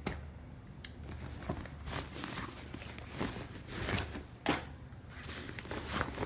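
Rustling and scattered light knocks of a fabric bag being handled as things are pulled out of it.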